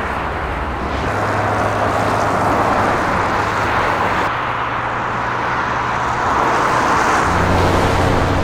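A car driving on a road: steady tyre and road noise with a low engine hum that shifts in pitch about seven seconds in.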